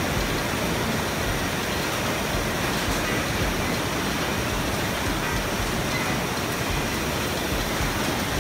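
Roller conveyor lines running, with a steady rumbling, rattling noise of plastic crates rolling over the metal rollers.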